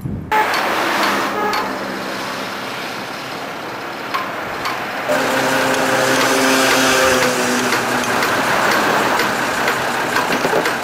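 A few sharp knocks, typical of tools on tram overhead-line fittings, over steady vehicle noise. About halfway through, a motor's pitched hum comes in for a few seconds.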